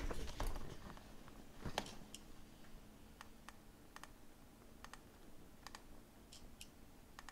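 Faint, scattered small clicks and light taps, about eight in all, from handling tools and parts on an electronics repair bench, over a faint steady hum.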